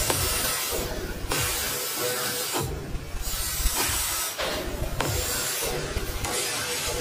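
Wooden knife handle pressed against a spinning sanding wheel, giving a hiss that swells and eases in repeated passes about every second and a half, over the steady hum of the machine's motor.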